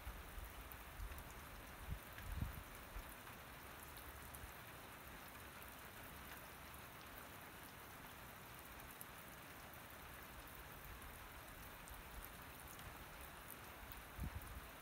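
Steady rain falling, a soft even hiss with a fine patter of individual drops. Brief low rumbles come about two seconds in and again near the end.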